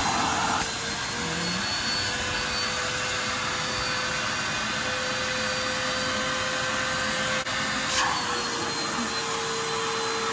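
Vacuum cleaner running steadily, its hose on the valve of a vacuum seal storage bag to draw the air out and compress the packed clothes. The motor's hum steps up slightly in pitch about half a second in and drops a little about eight seconds in.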